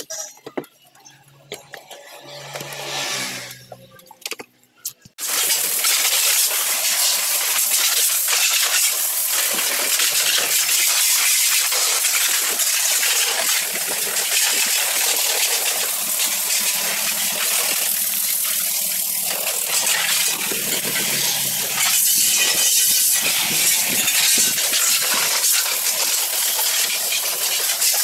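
Soft rubbing of a soapy cloth on a scooter's plastic body panels for the first few seconds. Then a high-pressure water jet starts spraying onto the scooter, a loud steady hiss that carries on from about five seconds in.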